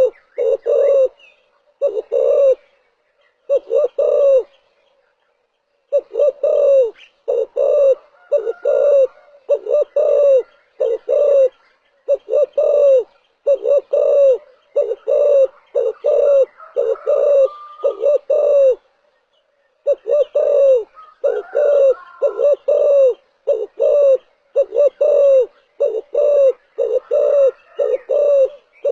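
Spotted dove cooing: a run of short, low, repeated coo phrases, with brief pauses about five and nineteen seconds in.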